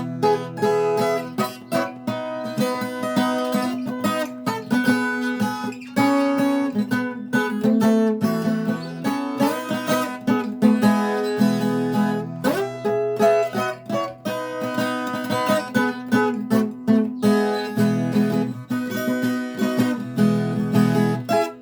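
Viola caipira played solo: a quick run of plucked steel-string notes over a steady ringing low note.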